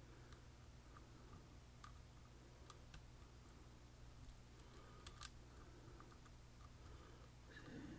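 Faint, scattered clicks of a lock pick working the sliders inside an M&C Condor lock, the loudest a little past the middle, over a low steady hum.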